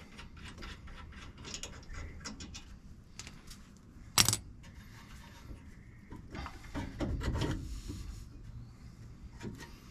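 Small metal clinks and rattles of hand tools and brake parts while a rear brake caliper is pulled back to get at the pads. There is one sharp metallic knock about four seconds in and a scraping stretch around seven seconds.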